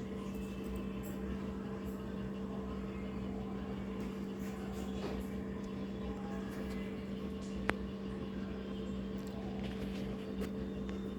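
Steady electrical or mechanical hum of a running room appliance, with two steady tones. A single sharp small click about two thirds of the way through.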